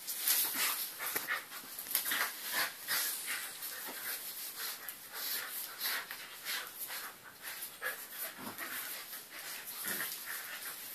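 A Eurasier puppy and its mother play-fighting on a tile floor: panting with quick, irregular scuffling.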